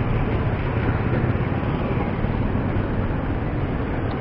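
Rusi Bantul motorcycle engine idling steadily while it warms up, freshly tuned up with its carburetor just cleaned.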